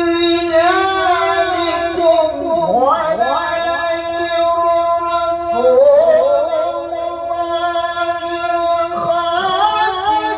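A male qari reciting the Qur'an in high-pitched melodic tilawah through a microphone and PA: long held high notes with wavering ornaments, and a swooping run down and back up about two to three seconds in.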